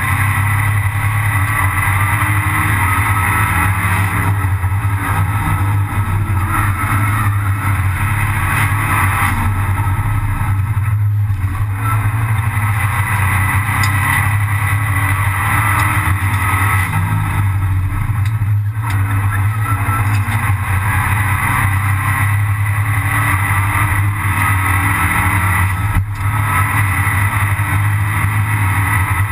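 Abarth 500 Assetto Corse race car's turbocharged four-cylinder engine running hard at racing revs, heard from inside the stripped cabin. The engine note drops out briefly three times, at gear changes.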